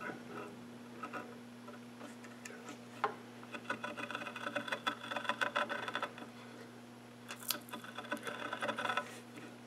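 A compass-type stringing cutter scraping a curved groove into a wooden table leg for stringing inlay, cut a little over a sixteenth of an inch deep. It makes a quick run of small scratchy clicks from about three and a half seconds in, with a sharper click or two among them.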